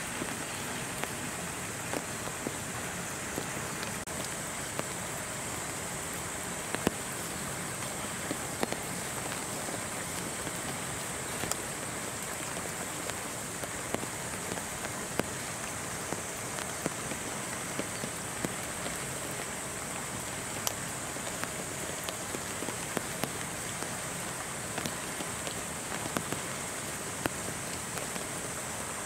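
Steady rain falling, with many scattered drips and taps over a constant high hiss.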